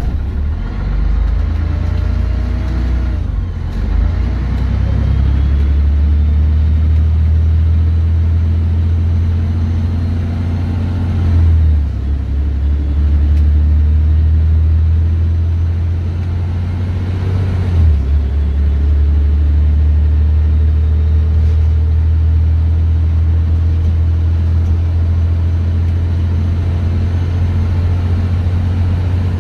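Scania N113DRB double-decker bus heard from inside the passenger saloon while underway: its rear-mounted 11-litre six-cylinder diesel gives a loud, steady low drone. There are faint rising whines near the start, and the drone breaks off briefly twice, about twelve and eighteen seconds in.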